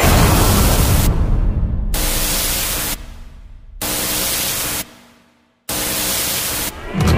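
Intro sound design of white-noise static blasts, about four blocks of roughly a second each that cut in and out abruptly, with a faint droning tone underneath.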